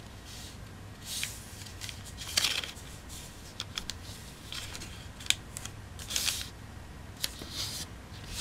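A sheet of origami paper being folded and creased by hand: short rustles and crinkles in bursts, with a few sharp ticks as the fold is pressed flat.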